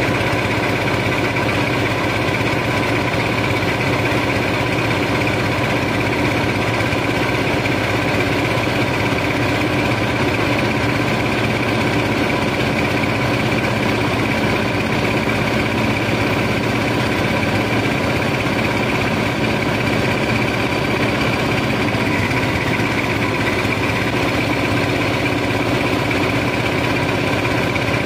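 Sand barge's engine and unloading machinery running steadily: an unchanging drone with several fixed tones in it.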